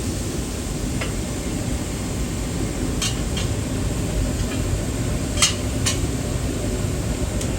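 Kitchen cooking sounds: a steady low rumble with about six short, sharp clinks of cookware and utensils, the loudest a little past five seconds in.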